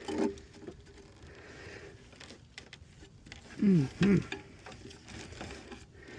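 Faint scraping and ticking of hands working at coax cable wrapped around a flipped lawn mower's blade, with a man's short 'mm-hmm' about four seconds in.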